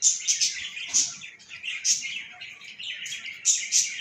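Small birds chirping busily: steady high twittering, with loud sharp chirps standing out several times.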